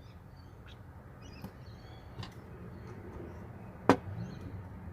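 Small clicks and taps from handling a plastic key fob casing and its wiring while fitting them together, with one sharp click about four seconds in.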